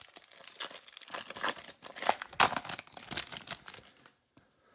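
Foil wrapper of a 2021 Topps Holiday baseball card pack being torn open and crinkled in the hands, a dense irregular crackle that stops about four seconds in as the cards come out.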